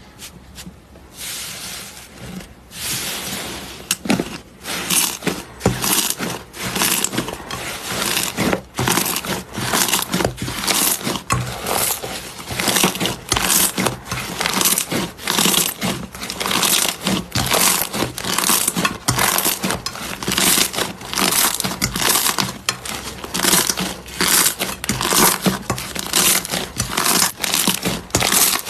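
Slime being squeezed and kneaded by hand: a fast, continuous run of wet crackles and pops, building up over the first few seconds.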